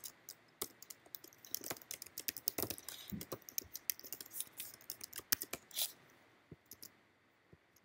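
Fast, irregular typing on a computer keyboard, key clicks rattling along and then thinning to a few stray clicks about six seconds in.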